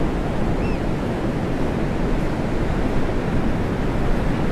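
Ocean surf breaking and washing on a beach: a steady, dense rush of waves. A single brief high chirp sounds about a second in.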